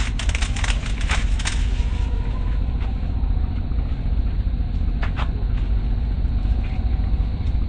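Steady low rumble of wind buffeting the camera's microphone, with scattered clicks and scrapes, thickest in the first second and a half, and one sharp click about five seconds in.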